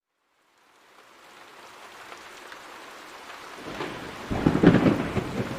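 Rain hiss fading in from silence, with a loud rumble of thunder about four seconds in.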